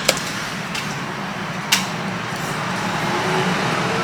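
Steady fan-like rushing noise with two sharp clicks, about a second and a half apart.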